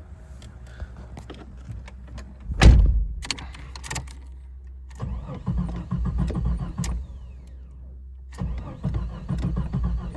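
A 1993 Jeep Cherokee XJ's starter cranks the engine in two tries without it firing, after a loud thump about two and a half seconds in. This is the crank-but-no-start that the owner blames on a failed ignition coil.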